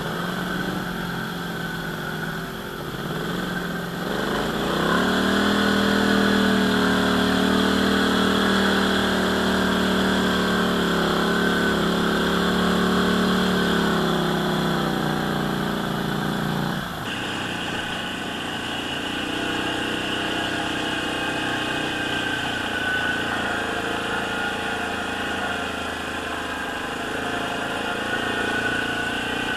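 ATV engine running on the trail. About four seconds in the throttle opens and the note rises and gets louder, holding steady. About seventeen seconds in it drops suddenly to a quieter, lower drone.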